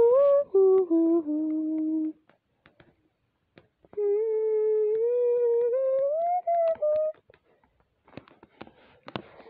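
A person humming a short tune. First comes a falling run of held notes, then after a pause one long note that slides up and eases back down. A few soft clicks come near the end.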